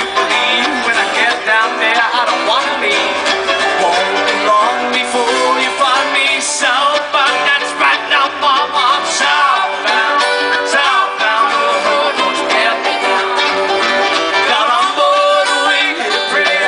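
Bluegrass string band playing live: an instrumental passage of fast banjo, mandolin and guitar picking.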